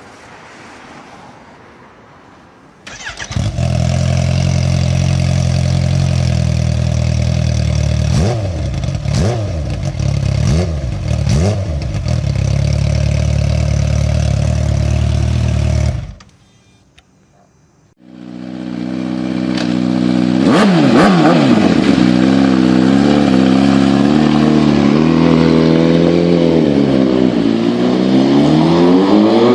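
Inline-four superbike engine with no muffler, starting up about three seconds in and idling with three quick throttle blips, then cutting off suddenly about halfway through. After a short gap a second open-exhaust run follows, its revs swinging up and down and climbing slowly near the end.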